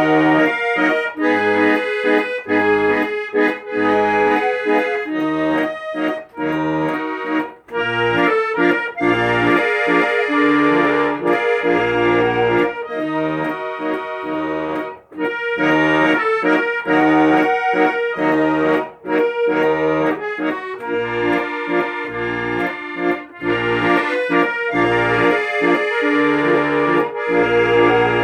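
Accordion playing a melody over a rhythmic accompaniment of alternating bass notes and chords.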